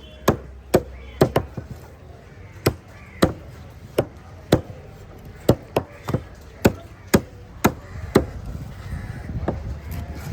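A heavy knife chopping through fish on a cutting block: a dozen or so sharp chops, irregularly spaced, about one every half second to second.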